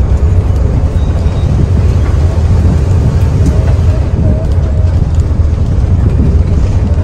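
Mercedes-Benz OH 1521 bus's diesel engine running with road noise from the moving bus, a steady low drone throughout.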